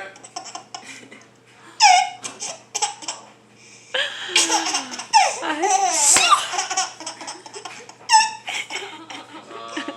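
A baby laughing at a sneeze, in several bursts with a long run of laughter in the middle.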